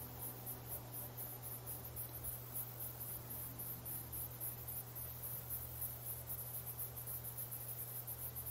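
Faint, steady background ambience: a high-pitched chirring that pulses about three or four times a second, over a low steady hum.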